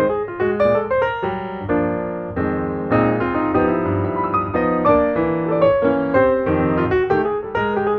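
Background piano music: a flowing run of notes over held chords.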